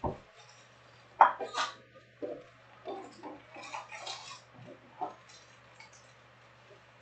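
Cardboard trading-card boxes and wrapped card packs being handled on a table: a knock at the start, a sharp clack a little over a second in, then scattered crinkling and tapping as packs are moved, with one more knock about five seconds in.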